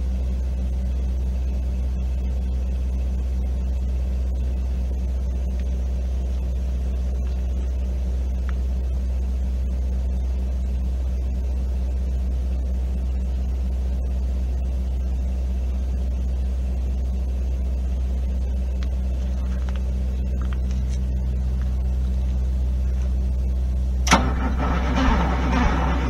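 Detroit Diesel 6V92 two-stroke V6 diesel idling steadily on a cold start, puffing white smoke from the exhaust. Near the end there is a sharp knock, then louder, rougher noise.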